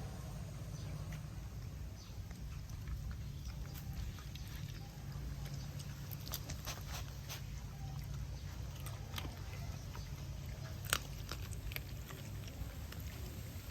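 A dog eating rice, with scattered short clicks of chewing and mouth noises over a steady low rumble, one sharper click near the end.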